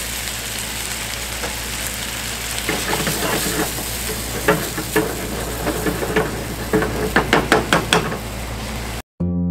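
Cream risotto bubbling and sizzling in a frying pan, with a wooden spatula stirring and scraping the pan in quick strokes from about three seconds in. The sound cuts off near the end and guitar music starts.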